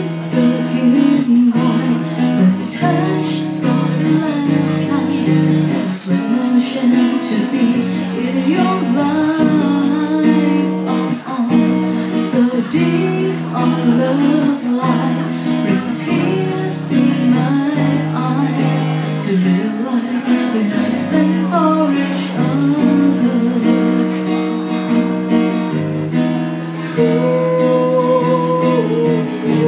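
A woman singing a Thai song into a microphone, live, over strummed guitar accompaniment.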